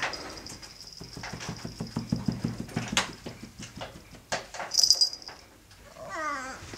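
Oriental-Siamese cross cat purring with a fast low pulse while licking its fur, a small collar bell jingling about five seconds in, then a short wavering meow near the end.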